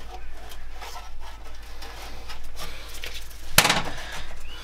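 Handling noise from working on a heater unit on a steel workbench: scattered small knocks and clicks, with one sharp, loud knock about three and a half seconds in.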